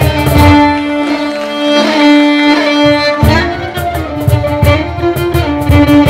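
String quartet with an extra violin playing a Persian traditional tune, bowed violins, viola and cello. A cajon beats under the strings, drops out for about three seconds leaving held string notes, and comes back in about halfway through.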